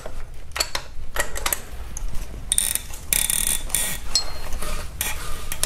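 Hand wrench working a tight AC compressor mounting bolt: scattered metal clicks, then a run of rapid rattling clicks about two and a half to four seconds in. The bolt is extremely tight.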